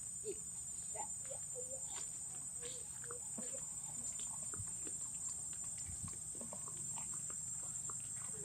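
Outdoor ambience: a steady high-pitched insect drone, with scattered short animal chirps and squeaks and small clicks and rustles.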